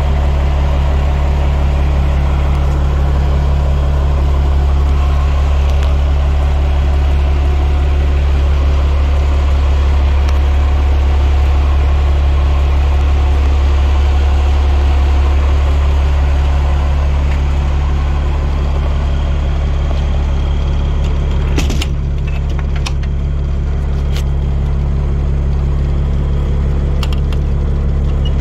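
Fire truck's Cummins diesel engine idling, a steady low hum. A few sharp clicks and knocks come in the last several seconds.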